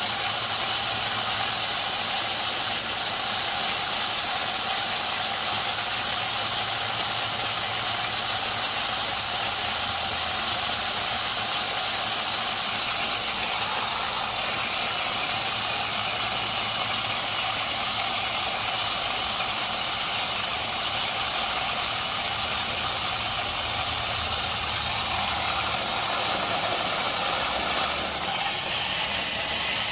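Condensate water and compressed air blasting steadily out of the open drain valve at the bottom of an Ingersoll Rand air compressor tank and spraying onto concrete, a loud, continuous hiss. Water that has built up over years of the tank going undrained is being forced out. A steady low hum runs underneath.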